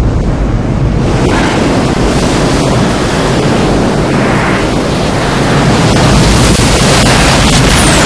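Film sound effect of a giant tsunami wave bearing down on the sea: a loud, continuous rushing noise of wind and surging water that swells about a second in and grows louder again from about six seconds.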